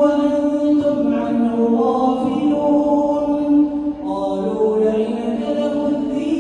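A man's voice reciting the Quran in the slow, melodic chanted style of tajweed, holding long drawn-out notes that bend gently in pitch, with a short breath about four seconds in.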